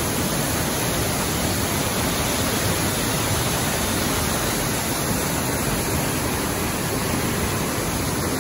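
Steady rush of water spilling over a small concrete weir and falling into the channel below.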